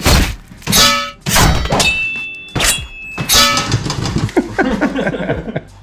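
Cardboard shipping box sealed with packing tape being torn open by hand: a quick series of loud rips of tape and cardboard with thuds as the flaps are wrenched apart, then smaller rustling and scraping of the cardboard.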